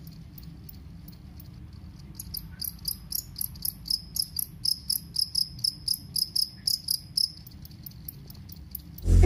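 Jangkrik kalung (two-spotted field cricket) calling with a high-pitched chirp repeated about three to four times a second. The chirps are soft at first, loudest from about two seconds in, and fade about seven seconds in. Loud music comes in near the very end.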